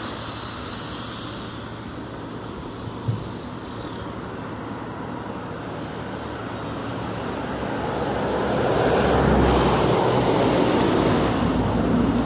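Aircraft engine noise dying away, with a short knock about three seconds in. Then another broad rushing engine noise swells, loudest about nine to ten seconds in.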